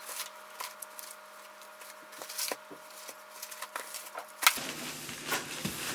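Packages being handled and lifted out of a delivery box: scattered light taps, clicks and rustles, with one sharper knock about four and a half seconds in.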